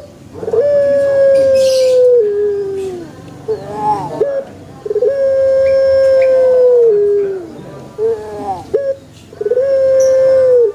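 Puter pelung dove cooing: three long drawn-out coos, each held on one pitch and then dropping at the end, with shorter coos in between.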